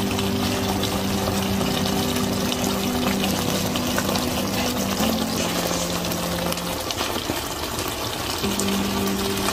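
Kung pao chicken sauce simmering and sizzling in a frying pan, a dense steady hiss. Soft background music of held low notes plays under it and stops for about two seconds near the end.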